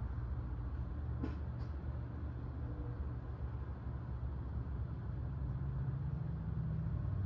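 Steady low background rumble, with two faint clicks a little over a second in.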